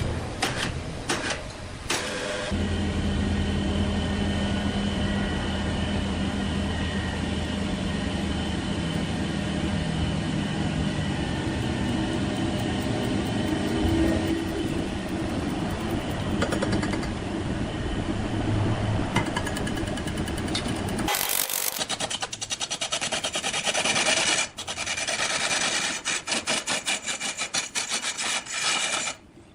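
Heavy woodworking machinery running with a steady low hum and whine. About two-thirds of the way through the sound changes suddenly to a harsh hiss broken by rapid ticking, as of a cutter working wood.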